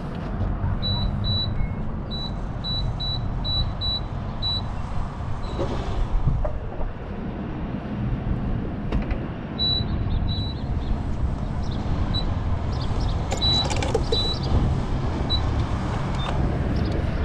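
Gas-station fuel pump running with a steady low hum while fuel is dispensed. Two runs of short, high beeps are heard, one near the start and one about two-thirds of the way through.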